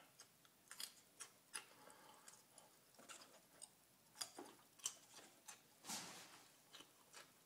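Faint crunching and wet mouth clicks of a person chewing raw garlic cloves: scattered sharp ticks, with a brief rush of noise about six seconds in.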